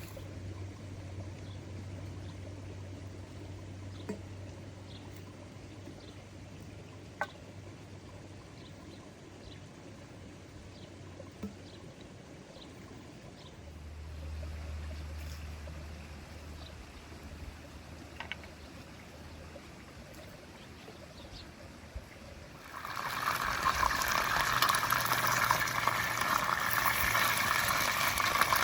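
Water trickling quietly, with a few faint clicks. Near the end a louder, steady rush of running or pouring water starts suddenly.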